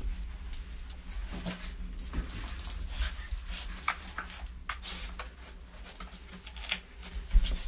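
Wet border terrier rolling and wriggling on its back on a bristly doormat to rub itself dry: scratchy rubbing of fur on the mat in irregular strokes, with its collar jingling.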